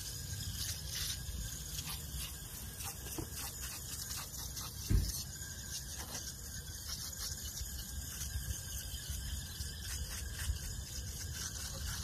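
Aerosol can of rinseless coil cleaner spraying into RV air conditioner coils: a steady high hiss. One dull thump about five seconds in.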